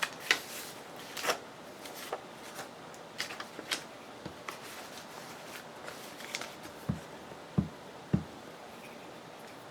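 Paper and craft materials being handled on a work table: rustling and scattered light clicks, with a few soft thumps about three-quarters of the way in.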